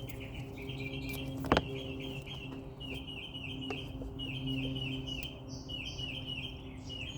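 A bird chirping over and over in a quick, steady series, over a steady low hum, with one sharp click about a second and a half in.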